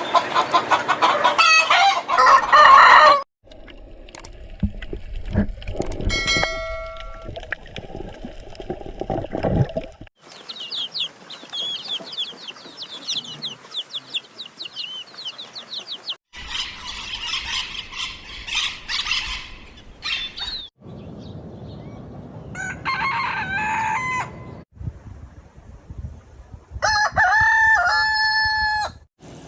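A string of short animal-sound clips cut one after another, with chickens clucking and a rooster crowing among them; the loudest call comes near the end.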